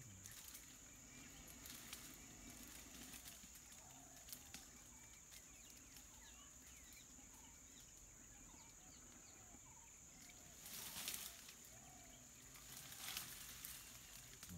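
Faint ambience of outdoor scrub: a steady high-pitched whine with scattered faint bird chirps, and two brief louder bursts of noise about eleven and thirteen seconds in.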